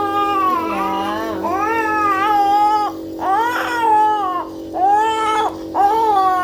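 Young child crying hard in a string of long, high wails with short breaks for breath, over the steady hum of a nebuliser compressor running.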